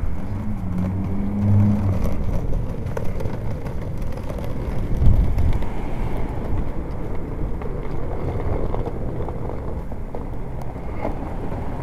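Urban street noise with passing car traffic: a steady low rumble, with a low hum in the first couple of seconds and a brief low thump about five seconds in.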